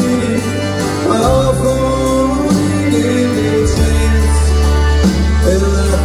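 Country band playing live: a steady bass line changing note every second or so, with guitar and a gliding melody line above it.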